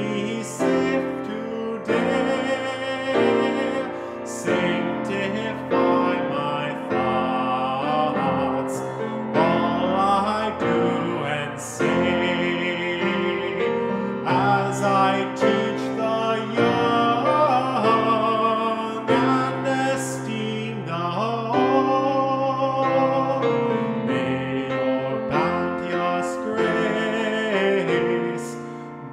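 A hymn sung with piano accompaniment, the melody moving in long held notes over a steady keyboard part.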